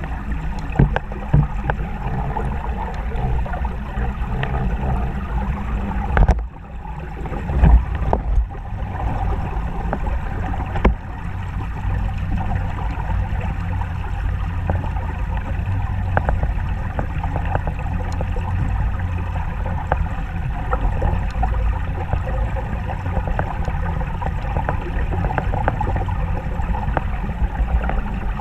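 Muffled, steady low rumble of flowing river water recorded by a camera underwater, with occasional knocks and clicks.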